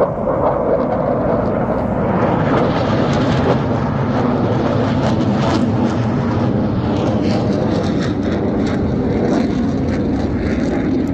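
Blue Angels F/A-18 Super Hornet jets flying past overhead: a loud, steady jet engine rumble that grows brighter and hissier about two seconds in and eases again in the second half.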